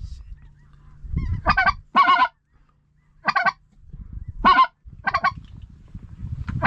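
Geese honking: about six short, wavering calls with gaps between them, over a low rumble.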